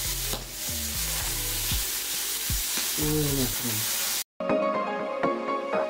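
Meat sizzling in oil on a Tefal Plancha Compact electric griddle as the pieces are turned with tongs. About four seconds in the sizzle cuts off suddenly and background music takes over.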